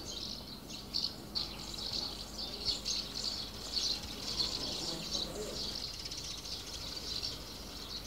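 Birds chirping: many short, high chirps overlapping without a break.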